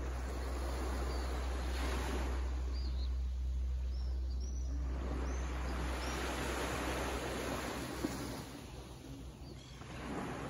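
Small waves washing onto a sandy beach, the surf swelling and ebbing several times over a steady low rumble. A few faint, short high bird chirps come in the first half and once near the end.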